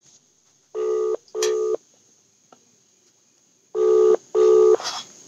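Telephone ringback tone of an outgoing call: a low double ring, two short steady beeps a fraction of a second apart, heard twice about three seconds apart.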